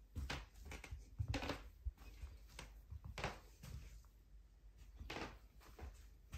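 Footsteps in foam clogs on a vinyl-covered floor of old wood-fibre plates over timber blocks, with the plates creaking under about ten uneven steps: loose, nailed plates rubbing against each other where they join.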